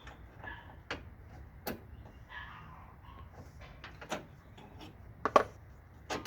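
Scattered light clicks and knocks of lock hardware being handled and fitted against the Jeep's grille, with a sharper pair of knocks about five seconds in.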